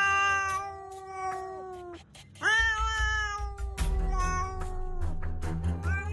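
Domestic cat giving long, drawn-out meows one after another, each lasting a couple of seconds with short breaks between and some sagging in pitch at the end.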